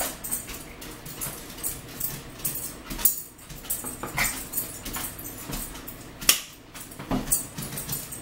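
Close-mic eating sounds: irregular chewing, mouth smacks and small crunching clicks of burger and toast, the sharpest click about six seconds in.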